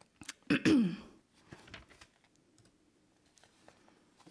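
A brief vocal sound with falling pitch about half a second in, then a quiet room with scattered faint clicks and taps.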